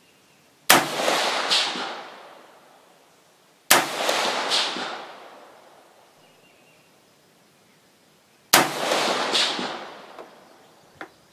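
5.56 AR-15 rifle with a 16-inch heavy barrel firing three single shots, about three and then five seconds apart. Each shot rings out and is followed by an echo less than a second later. A faint click comes near the end.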